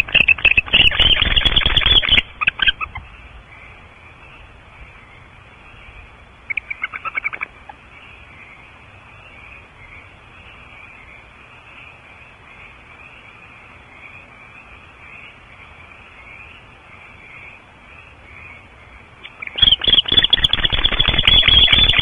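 Barn owls making harsh, rasping calls in the nest box: a long call at the start and another near the end, a short one about seven seconds in, and faint, wavering calls in between.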